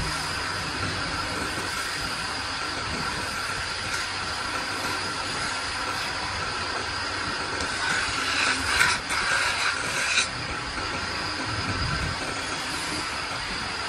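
Belt-driven wood lathe running steadily with a constant whine, spinning a turned wooden plate while a hand is held against its rim. Louder scratchy rubbing comes in about eight seconds in and lasts about two seconds.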